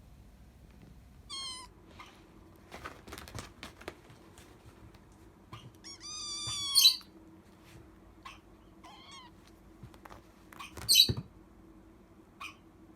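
A young kitten's odd, high-pitched cries, begging for food. There are several short calls, with a longer one about six seconds in and a loud one about eleven seconds in, and a few clicks around three to four seconds in.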